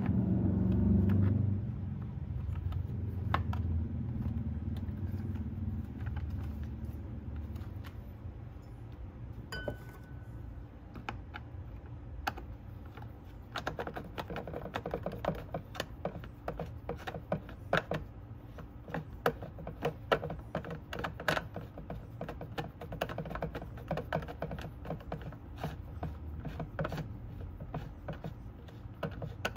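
Hands fitting the plastic top cover onto a Husqvarna 371 XP chainsaw: a long run of small clicks, taps and rattles of plastic and tools, thickest in the second half. At the start a low rumble fades away over the first several seconds.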